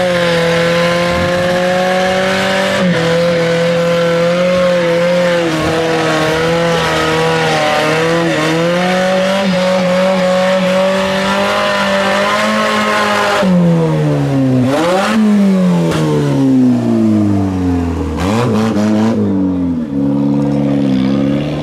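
Red Renault hatchback's engine held at high revs while its driven tyres spin in a burnout, with the hiss of spinning rubber. About two-thirds of the way through, the revs drop and rise sharply several times, then settle to a lower steady note.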